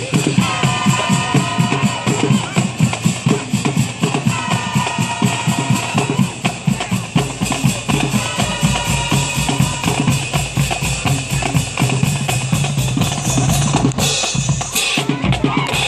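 Marching band drums playing a fast, steady cadence of bass and snare strokes. Short pitched phrases come in over the drums about every four seconds.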